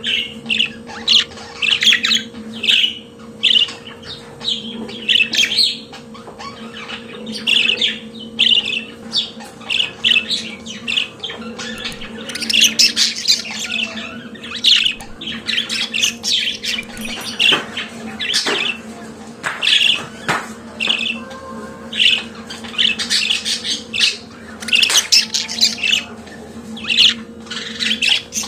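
Budgerigar warbling and chattering: a continuous stream of quick high chirps, squawks and twittering notes, over a faint steady hum.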